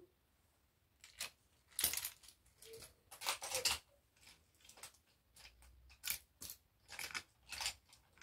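Wooden toy train cars clicking and knocking together and against the wooden track as they are handled and pushed along by hand: a scatter of short, sharp clacks, loudest about two and three and a half seconds in.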